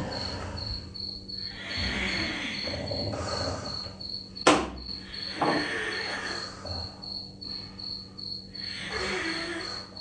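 Cricket chirping steadily, about three chirps a second. A sharp knock sounds about four and a half seconds in, and a softer one a second later.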